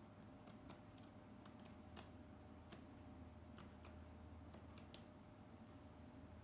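Eurasian tree sparrows pecking at rice grains: faint, sharp, irregular clicks of beaks tapping on grain and a hard surface, over a low steady hum.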